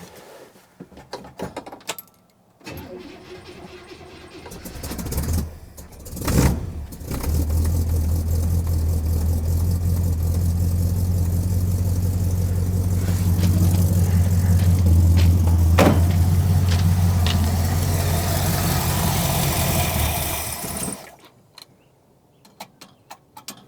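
1967 Buick LeSabre V8 with a freshly rebuilt Carter AFB four-barrel carburetor cranking for a few seconds, catching about seven seconds in and running steadily for about fourteen seconds, then dying suddenly. It stalls because the engine is not warm enough to run without choke.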